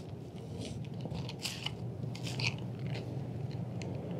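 Spline roller tool pressing rubber spline and fiberglass screen mesh into the channel of a metal screen frame, making a run of short, irregular scratchy clicks and scrapes.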